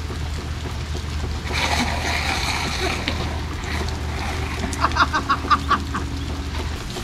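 Water spraying from a garden hose and splashing down, over a steady low rumble. About five seconds in comes a quick run of short high squeaks.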